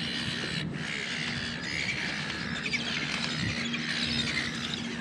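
A flock of gulls calling, many overlapping calls.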